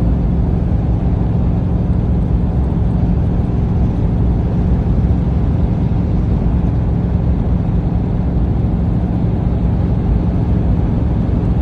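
Side-by-side UTV engine running at a steady, unchanging speed.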